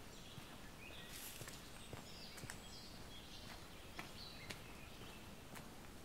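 Footsteps of a walker on a footpath, a few soft steps about half a second to a second apart. Small birds chirp with short, high notes several times in between.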